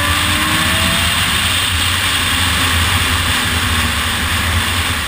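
Motorcycle engine running at road speed under loud, steady wind rush on an onboard camera microphone; the engine pitch rises briefly about a second in as it accelerates, then holds.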